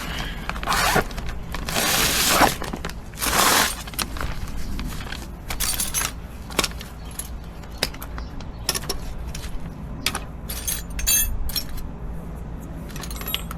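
Metal hand tools handled and clinking: a few rustling scrapes, then a run of sharp metallic clicks and clinks, some ringing briefly, while working at a seized, partly rounded-off bolt.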